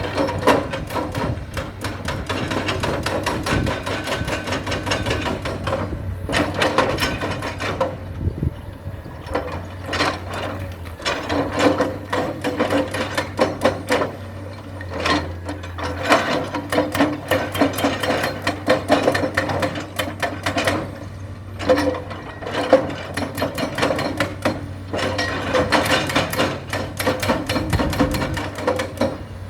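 Excavator running, its steady engine hum under rapid, irregular metallic clanking and knocking, with brief lulls.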